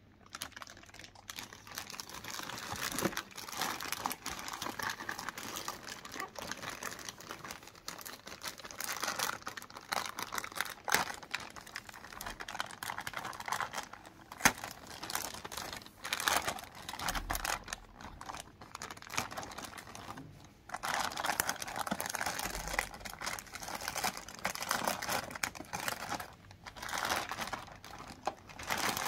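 Packaging being handled during an unboxing: plastic and wrapping crinkling and rustling in irregular bursts, with scattered sharp clicks and taps.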